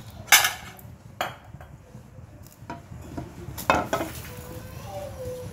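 Kitchen utensils clinking and knocking against a non-stick kadai with oil in it: three sharp knocks, near the start, about a second in and a little past halfway, with a fainter tap between.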